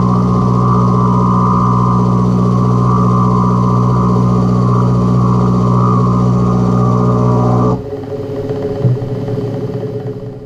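Milling machine running with an end mill side-cutting a metal block held in the vise: a loud, steady machine tone. About three-quarters of the way through, the main tone cuts off and a lower, weaker sound fades away as the machine is stopped.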